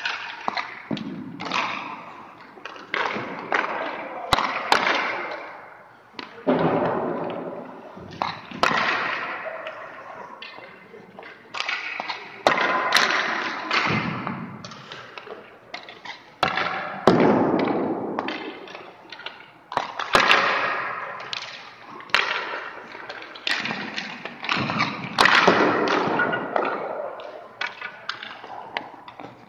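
Hockey goalie drill on ice: repeated sharp knocks of pucks off sticks and goalie pads, with scraping hisses of skate blades on the ice every second or two.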